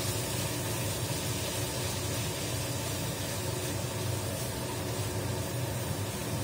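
Steady sizzling of sliced tempura fish cake frying in hot oil with garlic in a frying pan as it is stir-fried, over a low steady hum.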